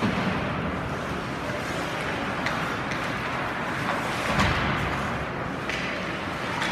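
Ice hockey rink sound during play: a steady wash of arena noise with a few faint sharp clacks of sticks and puck, and a dull thud a little after four seconds in.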